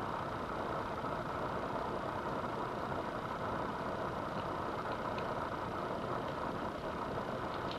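Steady background hum, even and unchanging, with a few faint light clicks of small metal parts being handled, a couple about four to five seconds in and one near the end.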